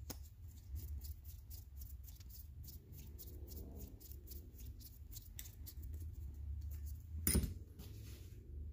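Small screws being turned into the top cap of a Honda Foreman's carburetor, a run of light ticks several times a second, with one louder knock near the end. A low steady hum runs underneath.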